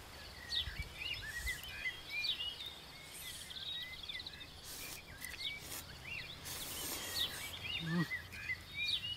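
Many birds chirping and calling in short repeated notes over a faint steady insect buzz, with a few short slurps from noodles being eaten with chopsticks.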